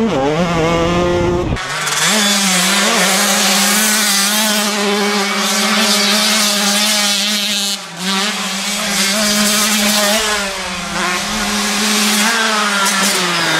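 Motocross motorcycle engine running at steady revs, with a brief drop in revs about eight seconds in.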